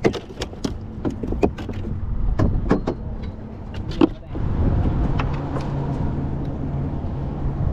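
A run of short clicks and knocks from fishing gear being handled on a fibreglass boat, with one loud knock about four seconds in. Then a steady low rumble.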